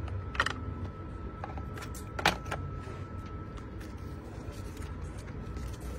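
Cardboard boxes of replacement phone screens being handled and opened: a few sharp taps and scrapes of card, the loudest about two seconds in, over a steady low hum.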